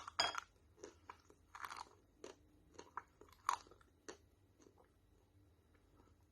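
Crunching of a brittle, crunchy item: a dense burst of crunches at the start, then single sharper crunches about every half second, dying away after about four seconds.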